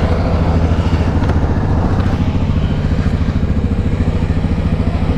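ATV engine running steadily at low revs, close by, with a fast even pulsing beat and no revving.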